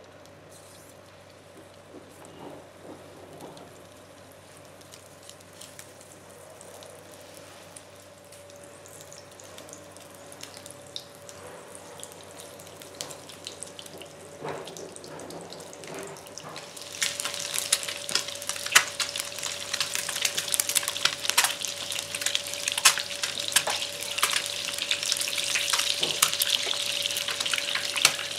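Peeled hard-boiled eggs shallow-frying in oil in a nonstick pan. A faint sizzle turns, about halfway through, into a much louder crackle with many sharp pops of spattering oil. A steady faint hum runs underneath.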